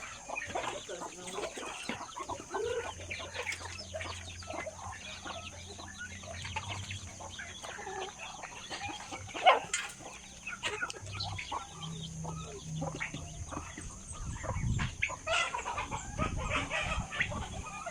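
A flock of chickens clucking continuously while being fed. A single sharp, loud sound stands out about halfway through.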